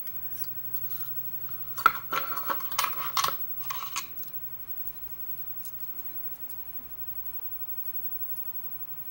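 Small metal lock parts clicking and clinking as the brass plug and pins of a disassembled 5-pin Euro cylinder are handled, with brief metallic ringing. There are several quick clicks about two to four seconds in.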